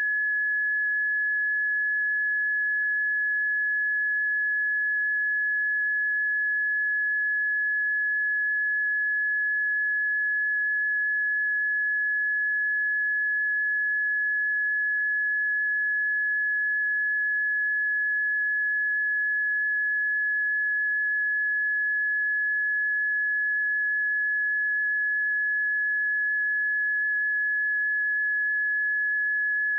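Seismic early-warning monitor tone: one steady, high-pitched electronic tone holding the same pitch. An unchanged tone on this alarm means no earthquake or eruption is being signalled.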